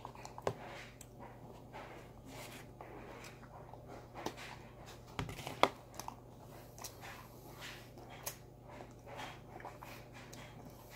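Close-miked eating of ice cream with vanilla cookies: soft chewing and wet mouth clicks, scattered through, with a low thump and a sharp click a little past five seconds in. A low steady hum runs underneath.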